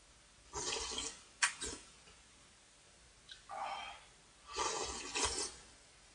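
A person slurping noodle-soup broth from a bowl held to the mouth: four noisy sips with short pauses between.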